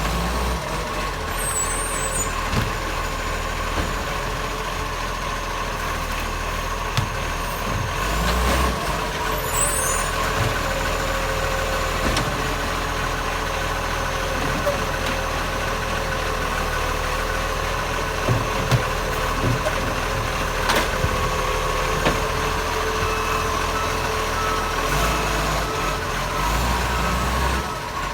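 Acco garbage truck running close by, loud and steady, its engine note made louder by an exhaust leak, with a few short knocks along the way.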